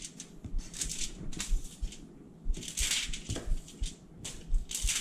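Chef's knife blade scraping butter across a sheet of aluminium foil, the foil crinkling under each stroke. Irregular strokes, with longer scrapes about three seconds in and near the end.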